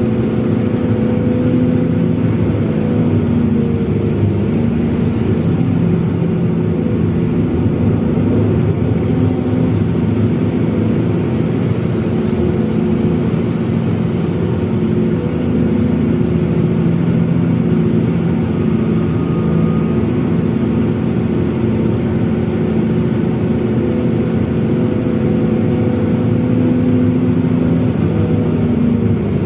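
Diesel engine of an SDLG long-reach excavator running steadily, its pitch shifting slightly as it works.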